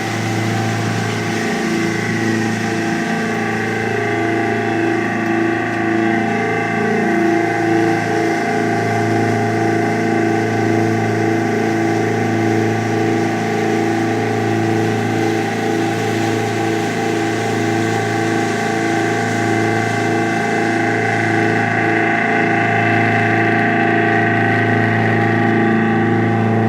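Boat engine running steadily under way: a loud, even drone with a slow pulsing beat in it.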